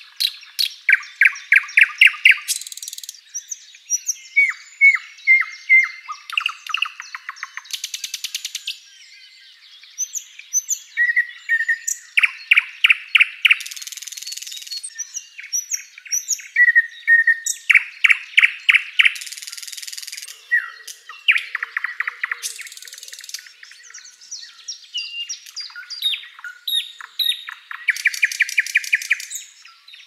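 Thrush nightingale singing loudly in short, varied phrases. The phrases mix fast runs of repeated notes, single whistled notes and several harsh rasps, with brief pauses between them.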